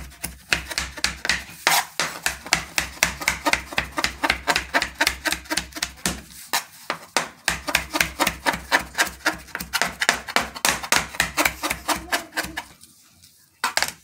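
Chef's knife rapidly chopping cooked chicken, shrimp and beef on a plastic cutting board, about five strokes a second, with a short break in the middle. The chopping stops near the end, followed by a single knock.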